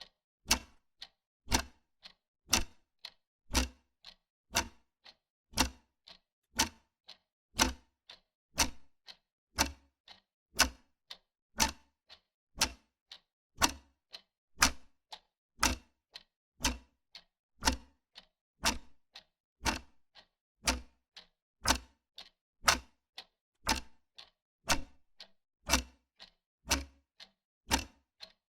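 Wall clock ticking steadily, about two sharp ticks a second.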